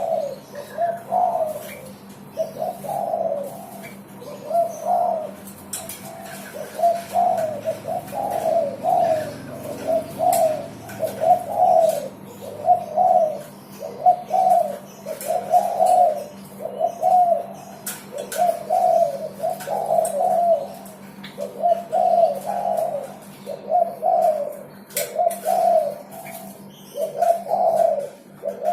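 Derkuku dove cooing over and over, a short coo roughly every second and a bit, with a steady faint low hum beneath.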